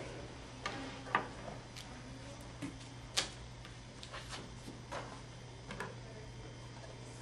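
Paper cards handled on a cardboard mock-up: scattered light taps, slides and rustles, the sharpest about a second in and around three seconds in, over a steady low hum.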